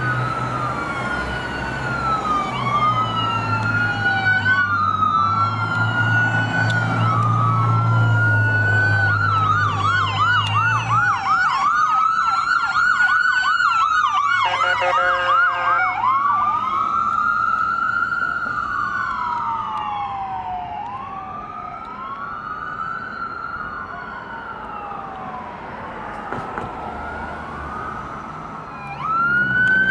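Sirens of an AMR ambulance and a fire department squad passing on an emergency run. An electronic wail rises and falls over and over, changes to a fast yelp about ten seconds in, and a horn sounds briefly around the fifteen-second mark. The wail then carries on more quietly, and another siren with engine rumble comes up near the end.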